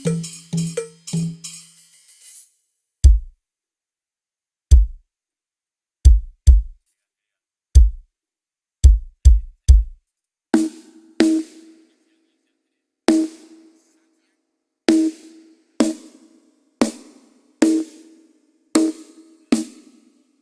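Drum kit being sound-checked one drum at a time. A fill with cymbal ringing dies away in the first two seconds. Then come single bass drum kicks at uneven intervals, and from about halfway, single snare drum strokes at roughly one a second.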